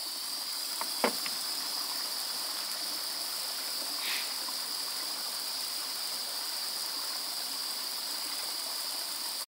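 Steady high-pitched steam hiss from the Accucraft BR Class 7 Britannia live-steam model locomotive, its blower left on after the fire has been put out, with a small click about a second in.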